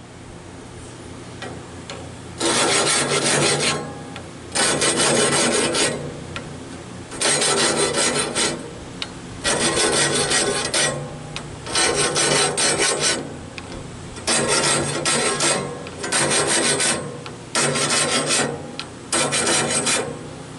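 Band-saw blade teeth on a Wood-Mizer LT15 sawmill being sharpened one tooth at a time with an air-powered sharpening tool: nine harsh grinding bursts of about a second each, roughly every two seconds.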